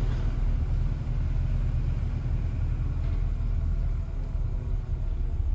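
Toyota Innova Reborn driving slowly in second gear, heard from inside the cabin with a window open: a steady low engine and road rumble.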